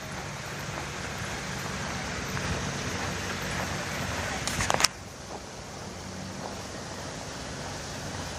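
Car engines running at low speed, a steady low hum under a hiss of traffic noise. A brief cluster of clicks comes about four and a half seconds in, after which the noise drops a little.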